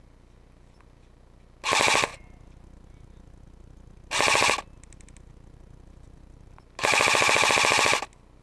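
Airsoft electric rifle firing three short full-auto bursts, each a rapid, even rattle of shots. The third burst, near the end, is the longest at just over a second.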